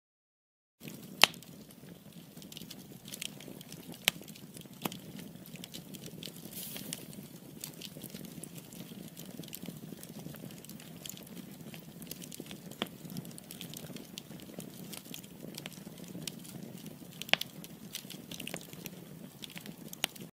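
Log fire crackling: a low, steady rush of flames with sharp pops every few seconds. It starts about a second in and cuts off suddenly at the end.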